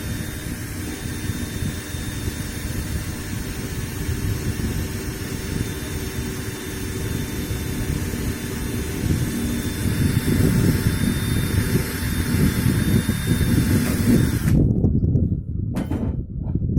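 Steady, loud rumbling noise with a faint hum and a hiss over it; about fourteen and a half seconds in, the hiss drops away abruptly.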